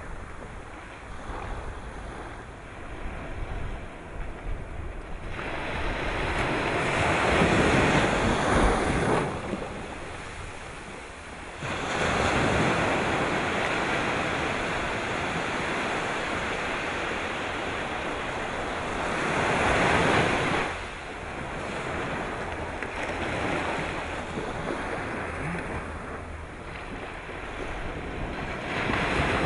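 Sea waves surging and breaking, a wash of noise that swells and falls back, with the loudest surges about a quarter of the way in and again at about two-thirds.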